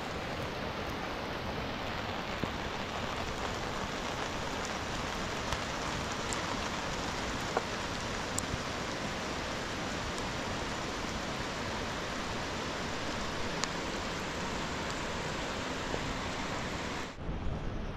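Steady rain falling, an even hiss with a few single drops ticking close by.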